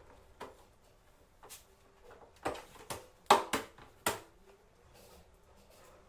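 A series of short, sharp plastic clicks and knocks, about seven in four seconds, the loudest about three seconds in: hands handling the opened plastic control panel of a washing machine.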